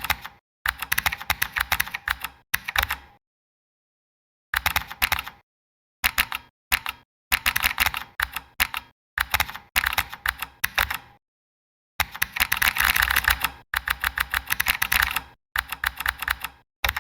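Mechanical-keyboard typing sound effect from the Tickeys app, a click played for each key press. The clicks come in quick runs of typing, with two pauses of dead silence, a few seconds in and about two-thirds of the way through.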